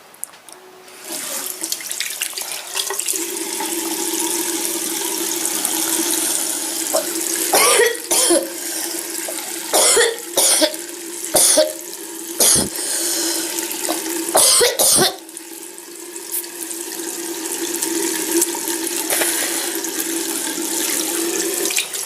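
A tap turned on about a second in, running steadily into a sink with a low hum under the rush of water. Between about 7 and 15 seconds in, a woman with a bad cold coughs loudly several times over the running water.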